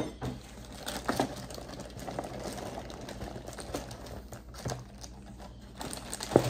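Cereal box and its plastic liner bag being handled: irregular crinkling and rustling with scattered small clicks, and a sharper knock near the end.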